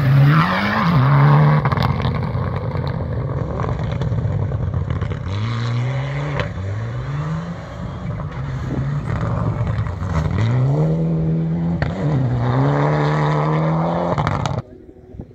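Mitsubishi Lancer Evolution X rally car's engine at full throttle on gravel, passing close and then accelerating away. The pitch climbs and drops back again and again as it shifts up through the gears. It cuts off abruptly near the end.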